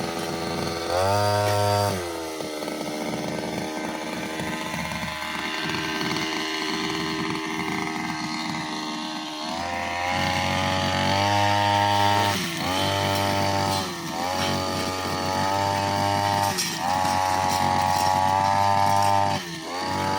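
Petrol brushcutter engine with a cutting blade, revving up briefly, running lower for several seconds, then revved high again and again with short drops in speed between, as it works through grass and brush.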